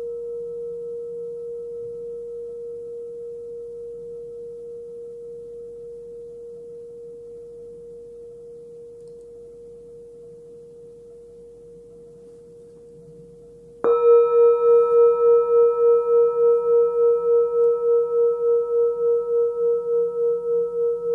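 Small 11 cm hand-forged singing bowl tuned to about 468 Hz, ringing with a pure high tone that slowly fades and wavers about twice a second. About 14 seconds in it is struck again and rings out loud with brighter overtones.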